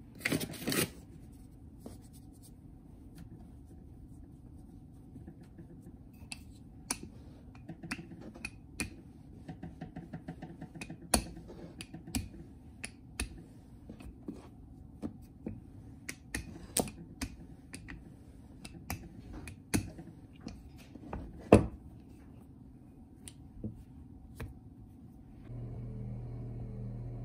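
A wooden rolling pin rolling dough into flat rounds on a plastic cutting board, with scattered sharp knocks and clicks as the pin and dough are handled. Near the end a steady low hum comes in.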